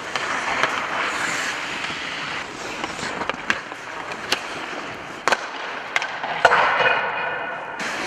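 Ice hockey skate blades scraping and carving on the ice, with sharp clacks of sticks striking pucks every second or so, the loudest about six and a half seconds in.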